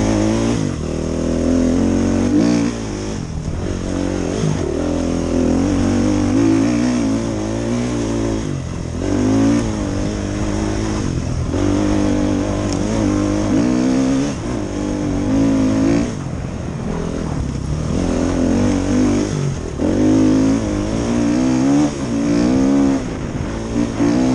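Dirt bike engine heard from on the bike, revving up and down as it is ridden: the pitch climbs under throttle, then drops off sharply every few seconds when the throttle is chopped or a gear is changed.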